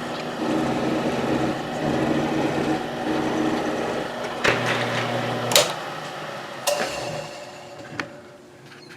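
Milling machine running while an end mill cuts a groove in a brass plate: a steady motor hum with several sharp clicks and knocks from about four to eight seconds in. The running sound fades over the last couple of seconds.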